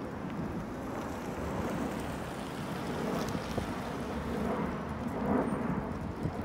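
Wind buffeting the microphone, a steady rumbling noise, over the low sound of police SUVs driving slowly away across a parking lot.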